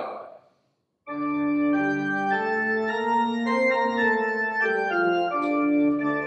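Organ music starting abruptly about a second in, playing sustained chords that move from one to the next.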